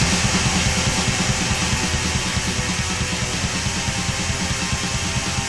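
Black metal music with rapid, dense drumming and guitar.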